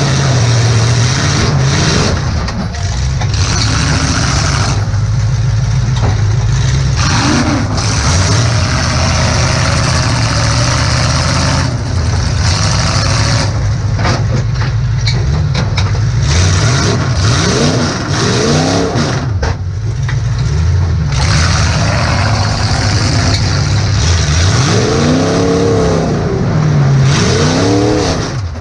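Demolition derby car's engine heard from inside the cab, running hard and revving up and back down several times, mixed with repeated bangs and clanks of metal.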